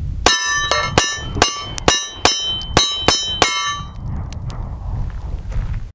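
Canik 55 Stingray-C 9mm pistol fired rapidly, about eight shots roughly half a second apart, each followed by a metallic ringing. The shooting stops after about three and a half seconds.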